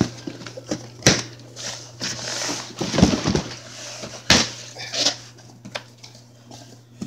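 Packaging being handled and rustled, with several sharp knocks, the loudest about a second in and just after four seconds in, over a steady low hum.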